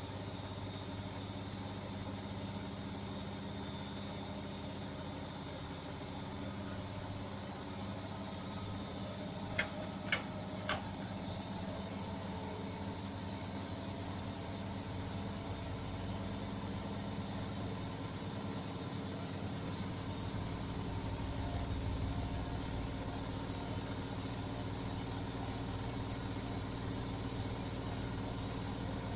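Beko washing machine spinning, a steady motor hum with a low drum rumble. Three quick clicks sound about ten seconds in, and the low rumble grows stronger about two-thirds of the way through.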